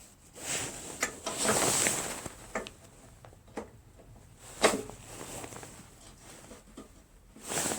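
Small metal clicks and scraping as cotter pins are worked out of a push mower's handle mount, with a longer scrape around the second second and a sharp click about halfway through.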